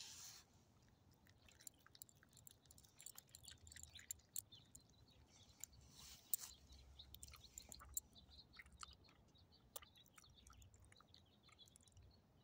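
Small dog chewing food, faint irregular clicks and smacks of her teeth and mouth.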